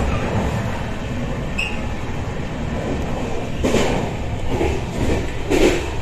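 Deccan Express passenger train running on the rails: a steady rumble of the moving coach, with two louder swells of noise, one past the middle and one near the end.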